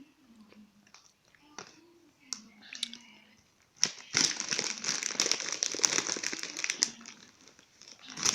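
Plastic snack bag crinkling loudly for about three seconds, starting about four seconds in, as a hand rummages in the packet of chips. Before it, quiet crunchy chewing and small mouth clicks.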